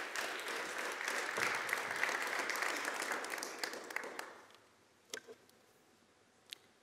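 Audience applauding, which fades out after about four seconds; two small clicks follow near the end.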